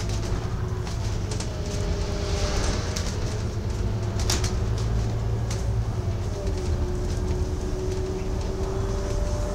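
Cabin noise inside a double-decker bus on the move: a steady low engine and road rumble with a droning tone that drifts slightly up and down in pitch, and scattered rattles and clicks from the bodywork, one sharper knock about four seconds in.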